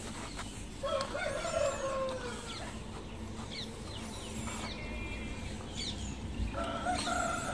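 Chicken calling, a long call about a second in and a shorter one near the end, with small birds chirping.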